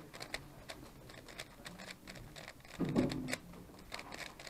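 MoFang GE Thunderclap 3x3 speedcube being turned quickly with one hand: a fast, uneven run of light plastic clicks as the layers snap round.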